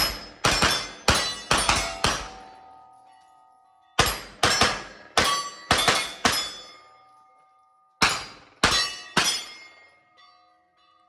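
Palmetto State Armory AKV 9mm carbine firing fast shots in three strings separated by short pauses, with struck steel targets ringing between shots.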